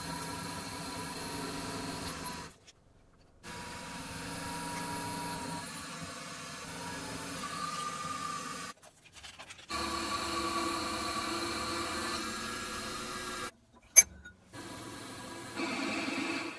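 Milling machine spindle running steadily with a faint whine while an end mill and then a twist drill cut into an aluminium block. It comes as several short stretches broken by brief silences, with one sharp click near the end.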